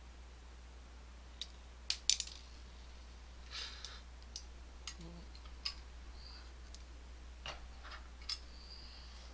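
Small metal lock parts being handled while a lock cylinder is disassembled: irregular sharp clicks and light metallic taps of pins, springs and picking tools, with a quick cluster of three clicks about two seconds in and a short scrape a little later.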